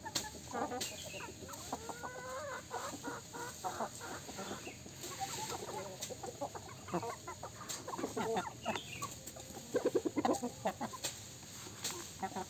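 A flock of chickens, roosters and hens, clucking almost without pause, with a louder run of rapid clucks about ten seconds in.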